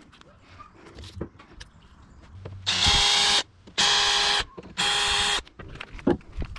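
Power drill run in three short, even bursts about a second apart, with a steady whine, typical of drilling holes for rivets; a few light clicks and knocks of handling come between.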